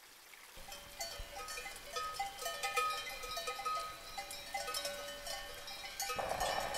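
Cattle bells clanking irregularly, fading in over a faint rushing background, as the opening of an alpine folk-music intro; about six seconds in, fuller, louder music joins.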